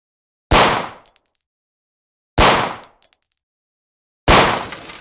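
Gunshot-through-glass sound effects: three sharp cracks about two seconds apart, each dying away quickly. The third rings on longer.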